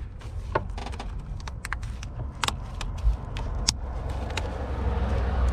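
Scattered sharp clicks and light knocks of hard parts being handled and pushed while fitting a car headlight assembly, over a steady low rumble.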